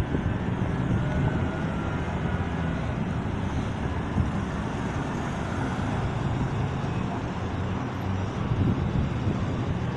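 Street traffic: cars driving past close by, a steady run of engine and tyre noise.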